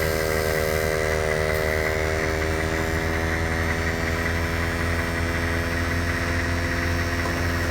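Pittsburgh 150 PSI air compressor running steadily under load while inflating a tire: a continuous motor-and-pump hum whose pitch sinks slightly over the first few seconds, then holds.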